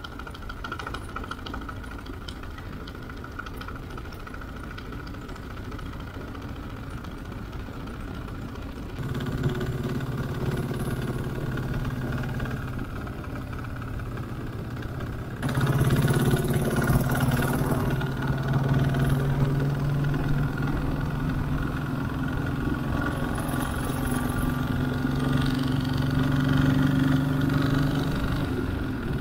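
Motorcycle engine running steadily while the bike is ridden, with wind and road noise. The sound steps up abruptly twice, about a third of the way through and again about halfway, after which the engine note is louder and steady.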